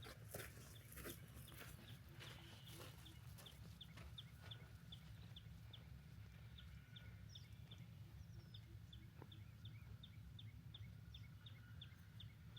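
Faint bird calls: a long, even series of short, high chips, about three a second, over a low steady rumble.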